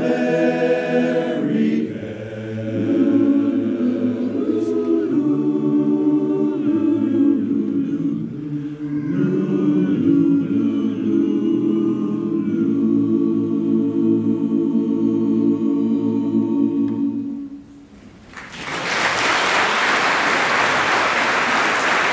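Men's barbershop chorus singing a cappella in close harmony, ending the song on a long held chord that cuts off about 17 seconds in. Audience applause breaks out a second later.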